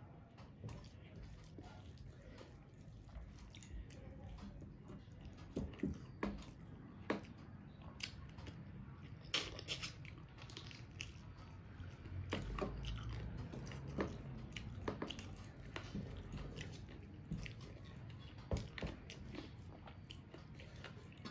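A person chewing mouthfuls of rice and chicken curry eaten by hand, with scattered sharp clicks.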